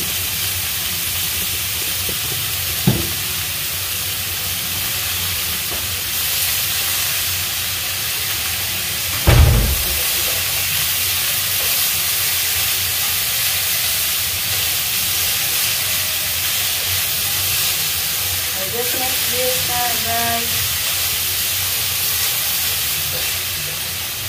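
Squash and long string beans sizzling steadily as they stir-fry in a nonstick frying pan over a gas flame, stirred with a silicone spatula. A short knock about three seconds in and a louder thump about nine seconds in.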